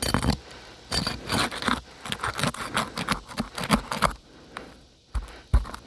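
Shingle snake tool scraping and clicking under asphalt shingles as it is worked along to locate and catch a roofing nail, with a couple of dull knocks a little over five seconds in.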